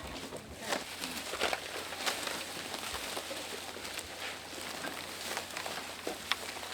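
Cut branches and brush being handled and broken up: irregular snaps, cracks and rustling with no steady rhythm.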